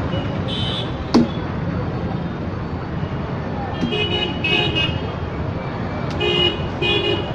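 Steady road-traffic rumble with vehicle horns tooting in short bursts: once about half a second in, then several times in the middle and again near the end. A single sharp click about a second in.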